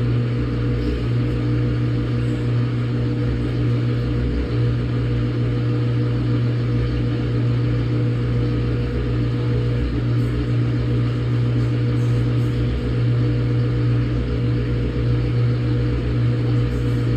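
Samsung top-load washing machine running on a quick wash cycle: a loud, steady machine hum with a low rumble under it.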